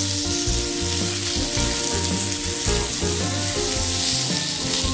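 Guava curry sizzling steadily in hot oil and water in a wok on a gas flame, an even high hiss.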